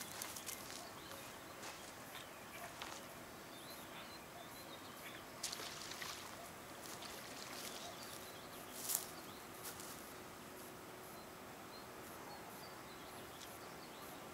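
Outdoor riverside ambience: a steady low hiss of open air, broken by a few short sharp clicks and rustles, the loudest about nine seconds in.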